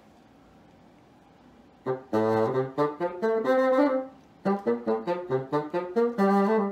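Bassoon playing a phrase of short separate notes with a few longer held ones, starting about two seconds in after a quiet pause.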